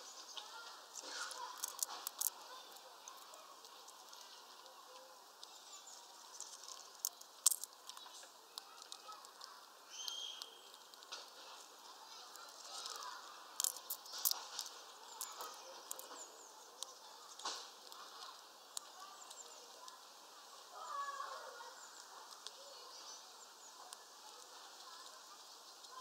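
Eurasian red squirrel eating seeds close to the microphone: irregular sharp clicks and crunches of gnawing and cracking.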